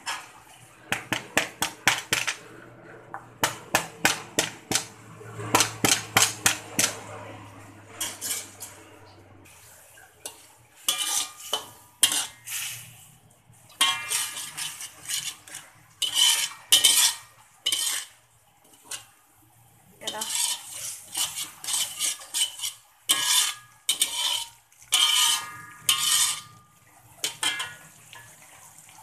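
Lemongrass stalks struck with a knife on a plastic chopping board: quick runs of sharp knocks. From about ten seconds in, a metal turner scrapes and clinks around an aluminium wok, stirring thick spice paste with a light sizzle.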